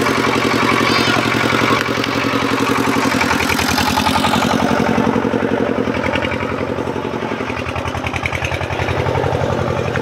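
An engine running steadily, with a fast, even pulse.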